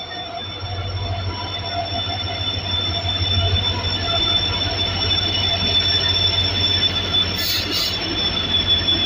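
A passenger train, hauled by an electric and a diesel locomotive, rolls slowly past a station platform. Its low rumble gets louder over the first few seconds as the locomotives go by, with a steady high-pitched squeal over it. Two short hisses come about seven and a half seconds in.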